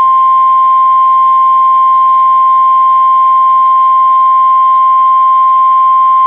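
NOAA Weather Radio 1050 Hz warning alarm tone: a single loud, steady, unwavering pitch with a faint hum beneath. It is the signal that an urgent alert is about to be broadcast, here a new severe thunderstorm watch.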